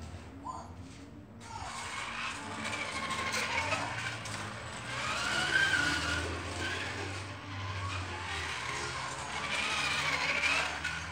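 Hot Wheels AI toy race car lapping the track, starting about a second and a half in: a motor whine that rises and falls in pitch as the car speeds up and slows through the turns, over a low hum.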